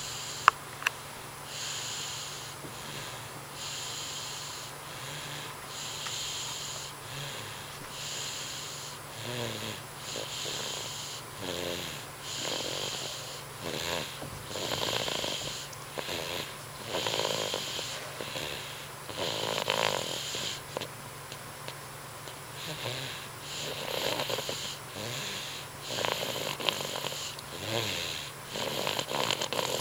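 Snoring in slow, regular breaths about every two seconds, each breath a raspy, wheezy hiss. A single sharp click comes just after the start.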